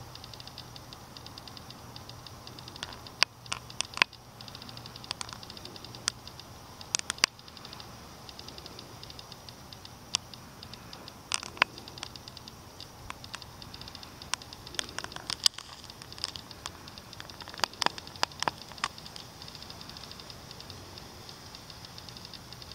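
Camera handling noise: scattered clusters of sharp clicks and rustles over a steady hiss with a faint low hum.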